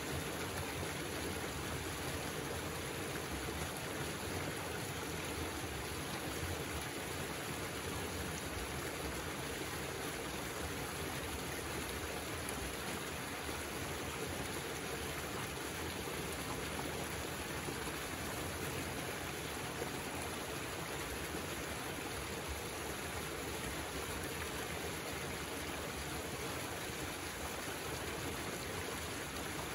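Muddy pond water running steadily down a freshly dug drainage trench as the pond drains.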